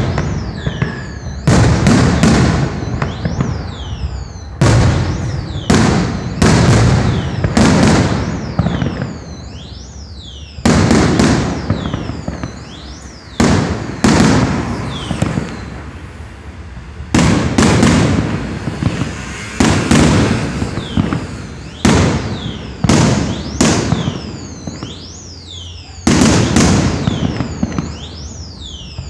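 Aerial firework shells bursting in quick succession, a loud bang every second or two, each one dying away over about a second before the next, with a couple of short lulls in between.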